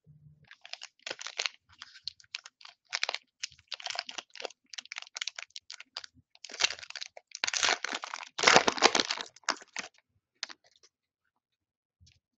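Foil wrapper of a Panini Chronicles football card pack being torn open and crumpled by hand: a run of crinkling crackles, loudest about two-thirds of the way through, dying away near the end.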